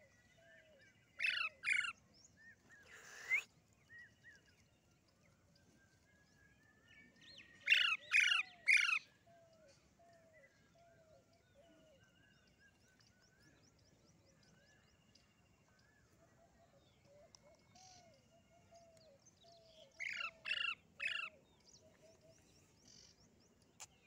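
Parakeets giving short, harsh screeching calls in clusters of two to four: near the start, about eight seconds in and again near the end. Fainter bird chirps run between the clusters.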